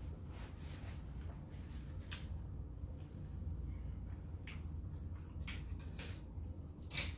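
Close-miked eating sounds: scattered wet mouth smacks and clicks while chewing, the loudest near the end, over a low steady hum.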